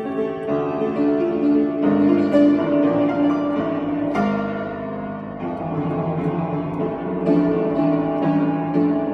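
Piano playing a classical-style piece, with chords and melody notes changing every second or two.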